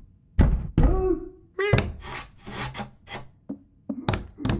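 A cat's paws banging and scratching at a wooden door: a couple of loud knocks, then a run of short rasping scratches, then two more knocks near the end, with a few short meows in between.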